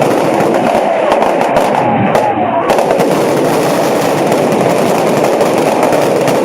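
Fireworks going off in a dense, continuous crackle of many small bangs, loud and unbroken throughout.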